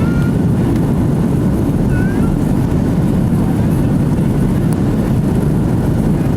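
Steady low roar of an Airbus A330-300 airliner as heard inside the passenger cabin: engine and airflow noise, even and unbroken.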